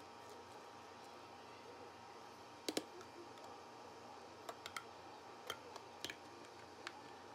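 Scattered light clicks and taps of a spatula against the bowl and a paper pint container as soft ice cream is scooped in, with a sharper double click about three seconds in.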